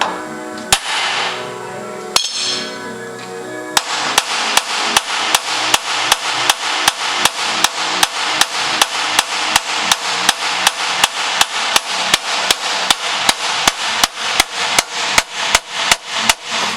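Hand hammer peening rivets into a steel chainsaw bar: a few separate blows, then from about four seconds in a fast, even run of about three strikes a second.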